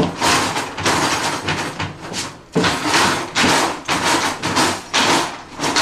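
Jammed kitchen drawer being yanked and banged over and over, a quick run of knocks and bangs about two to three a second: a fish slice caught the wrong way round inside is stopping it from opening.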